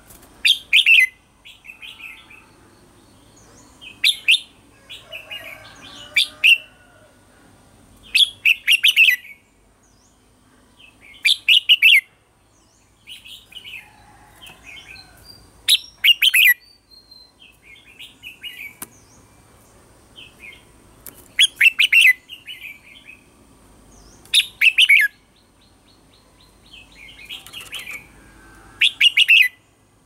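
Red-whiskered bulbul singing: about nine short, bright bursts of quick notes every two to four seconds, with softer chirps in between. This is the bulbul's challenge song ('hót đấu'), the kind used as lure audio to provoke caged bulbuls into singing.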